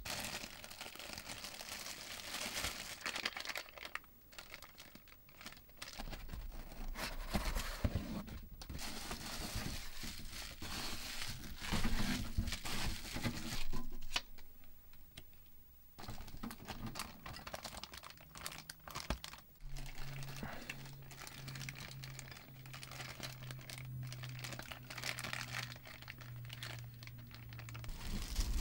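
Plastic wrapping crinkling and rustling as a boxed unit is handled and unpacked from its foam and cardboard packaging. There is a short lull about halfway, and a low steady hum sits under the last third.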